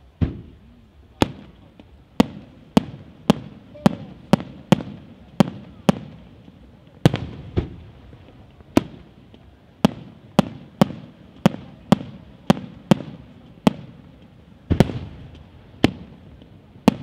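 Aerial firework shells bursting in a rapid, steady series, one to two sharp bangs a second, each with a short rumbling echo; two heavier bursts stand out about halfway through and near the end.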